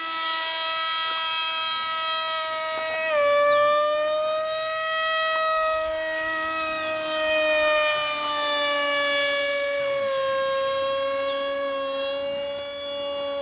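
Electric motor of a 3S-powered foam RC plane in flight: a steady high-pitched whine that drops in pitch suddenly about three seconds in, then wanders slightly up and down.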